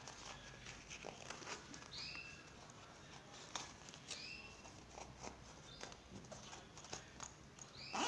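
Faint rustling of fabric and small clicks as a cloth pouch is handled and turned by hand, with a short high chirp three times and a louder rustle near the end.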